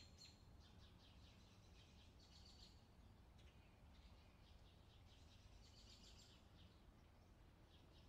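Faint chirping of a flock of Eurasian tree sparrows: short high chirps in quick clusters, over a low steady background rumble.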